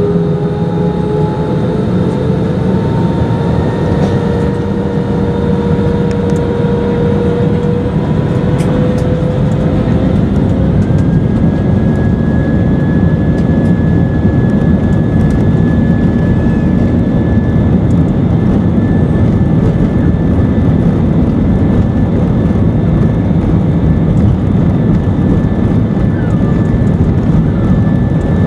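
Jet airliner's engines at takeoff power during the takeoff roll, heard inside the cabin: a loud, steady rush with engine tones rising in pitch over the first several seconds and a higher whine settling in about ten seconds in.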